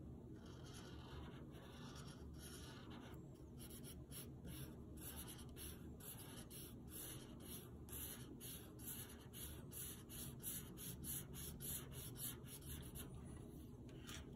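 Prismacolor marker tip rubbing across paper in faint, quick back-and-forth strokes as it fills in a coloured area. The strokes come thicker and faster from a few seconds in and stop near the end.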